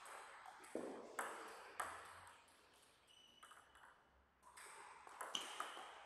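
Table tennis ball clicking off the bats and the table: a few knocks in the first two seconds, then after a quieter spell a serve and rally start near the end, with hits and bounces coming several times a second.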